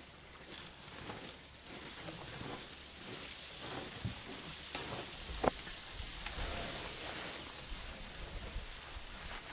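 Dry grass and brush rustling and crackling as elephants shuffle through it, with scattered small snaps and one sharper click about five and a half seconds in.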